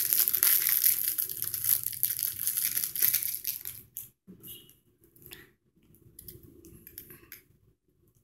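Plastic wrapping crinkling and rustling as it is pulled open and off a pen, stopping about four seconds in. After that, only a few faint clicks and soft taps of the pen being handled.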